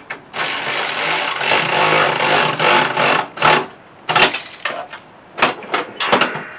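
Handheld power tool driving a bolt in. It runs for about three seconds, then gives five or six short bursts as the bolt is snugged tight.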